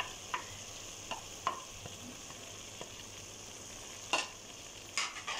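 Potato masala sizzling steadily in a pot as fried bitter gourd is scraped off a plate into it with a spoon and stirred in. A few short scrapes and knocks of the spoon sound over the sizzle, the loudest about four seconds in.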